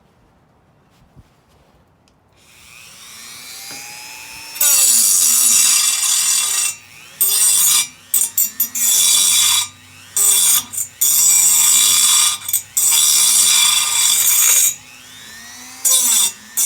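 Handheld power cutting tool spinning up, then cutting through a metal frame bar in repeated bursts. The motor's pitch dips and recovers between cuts.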